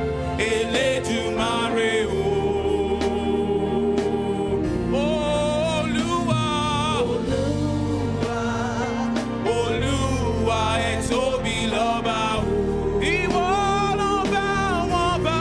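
Gospel praise-and-worship singing with a band: sung melody lines with held, wavering notes over sustained keyboard chords and bass.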